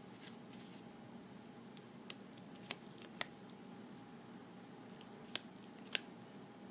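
A cat pawing at and licking a flat paper cutout on a wooden desk, giving five small sharp clicks and taps, the loudest near the end, over a faint steady hum.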